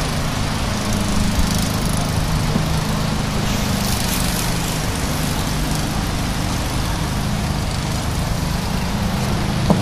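An engine running steadily, a constant low drone under a broad hiss.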